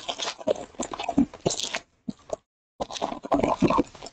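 Foil trading-card pack wrapper crinkling and crackling as it is torn open and handled, in irregular bursts with a short pause about two seconds in.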